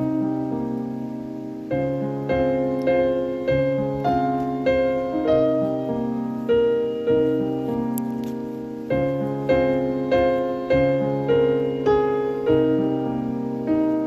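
Solo piano background music: a slow, gentle melody with chords, notes struck about every half second to a second and each dying away.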